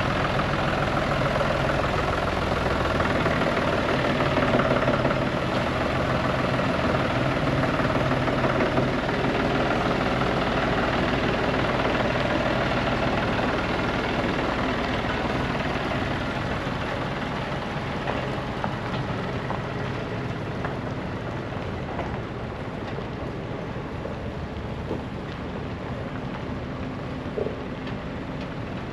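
Farm machine's diesel engine running steadily, growing gradually quieter over the second half.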